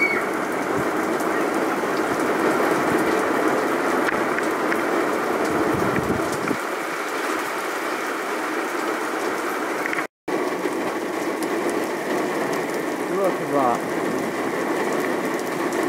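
Heavy rain pouring down in a steady hiss. The sound cuts out for a moment about ten seconds in, then the downpour goes on.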